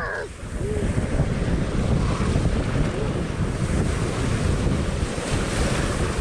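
Storm wind buffeting the microphone over ocean surf breaking on the beach, a dense, steady rush with low rumbling gusts.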